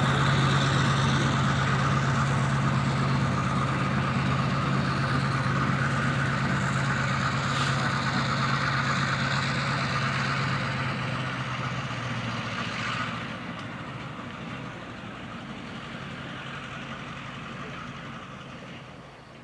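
An engine idling steadily with a low hum and a hiss over it. It slowly fades, drops in level about two-thirds of the way through, and dies away near the end.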